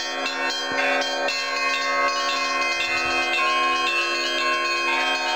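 Russian Orthodox monastery church bells ringing in an Easter peal: several bells struck in quick succession over a deep, steady bell tone. About a second in the strikes thin out and the bells ring on.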